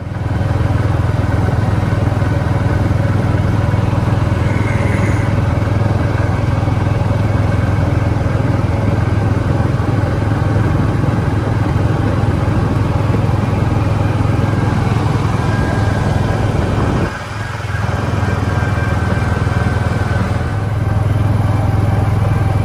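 Gator utility vehicle's engine running steadily with a low drone while driving along. Its sound eases off briefly about three-quarters of the way through, then picks up again.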